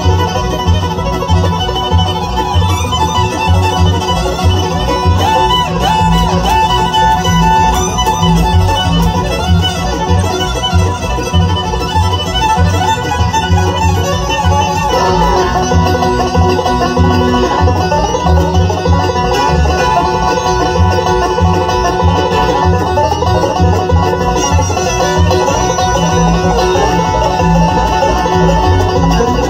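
Bluegrass band playing live: fiddle and banjo over an upright bass keeping a steady beat.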